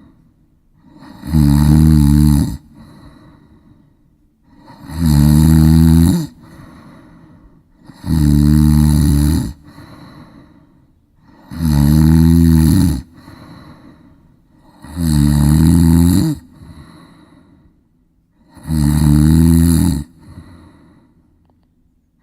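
Loud snoring: six long snores about every three and a half seconds, each lasting about a second and a half, with quieter breathing between them.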